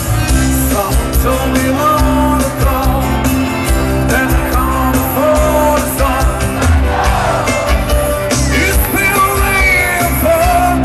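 Live band playing a rock song with sung lead vocals.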